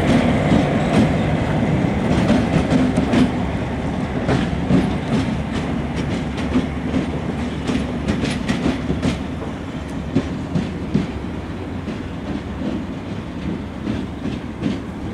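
Nohab M61 diesel locomotive's two-stroke V16 engine running with a steady low rumble as the locomotive rolls away, the sound slowly fading. Irregular sharp clacks from its wheels passing over rail joints and switches.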